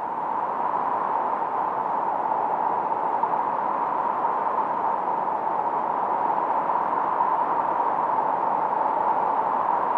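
1972 Minimoog synthesizer's noise generator making a steady, muffled hiss with a stronger mid-pitched band in the middle and little treble or bass.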